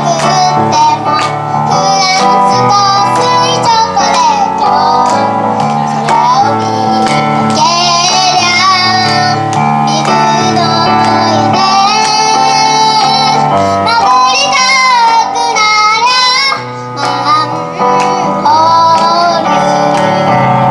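A young girl singing a pop song over instrumental backing music, her voice carrying the melody with gliding notes.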